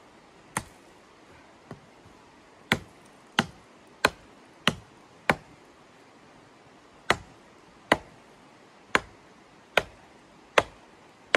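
Small hatchet chopping into a thin white-barked pole. About a dozen sharp, crisp chops come at roughly one every two-thirds of a second, with a short pause midway.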